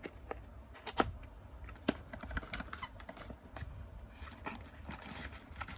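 Product packaging being handled: a few sharp clicks and taps of the box and cable, then a light rustle of plastic packaging near the end.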